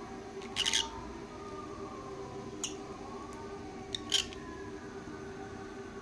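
Pet lovebirds giving short, shrill chirps: a quick cluster about half a second in, then single calls near the middle, over a low steady hum.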